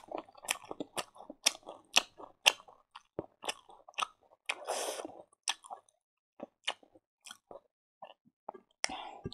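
A person chewing food, wet mouth sounds with crisp crunchy clicks about twice a second, thinning out in the second half.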